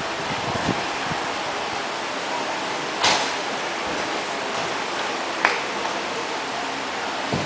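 Steady hiss of room noise, with a short knock about three seconds in and a sharp click about five and a half seconds in.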